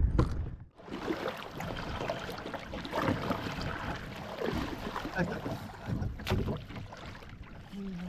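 Kayak paddle strokes, the blades dipping and splashing, with water sloshing around the hull.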